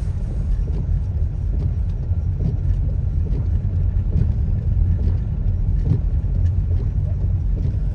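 Steady low rumble of a car driving on a snow-covered road, heard from inside the car, with a few faint ticks.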